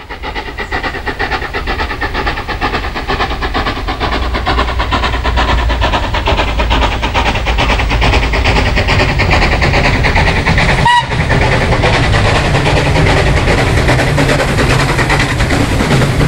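LNWR Webb coal tank 0-6-2T steam locomotive No. 1054 working a train. Its exhaust and running noise grow louder over the first half as it approaches, then stay loud as it runs close by.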